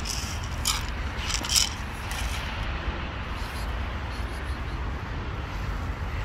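Steady low outdoor rumble, like distant traffic or wind on the microphone, with a few brief scratchy noises in the first two seconds.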